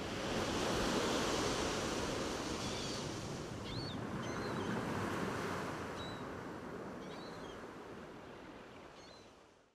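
Ocean surf breaking and washing up the beach, swelling twice in slow waves, with a few short high chirps, then fading out near the end.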